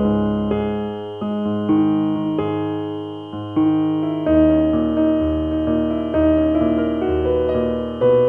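Background piano music: a slow keyboard melody over held chords, with new notes struck about once a second.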